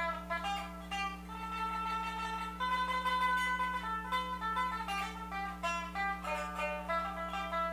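Pipa (Chinese lute) played solo, a melody of plucked single notes with a few longer held notes about one and a half to three and a half seconds in, over a steady low hum.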